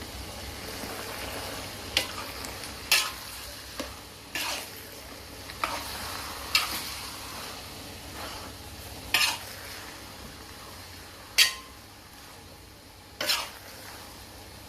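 Food sizzling in a pan, with a metal spatula striking and scraping the pan every second or two as it is stirred.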